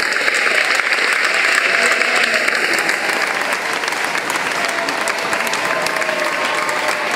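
Large arena crowd applauding a scored touch, heaviest in the first three seconds, with faint voices underneath.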